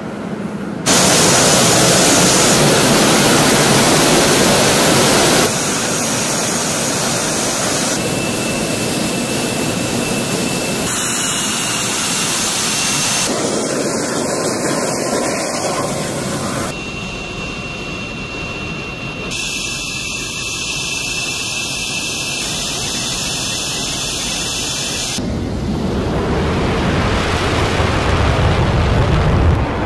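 FA-50 light combat aircraft's turbofan jet engine running on the ground: a steady rushing noise with a thin high whine at times. It is loudest in the first few seconds and jumps abruptly in level and tone several times.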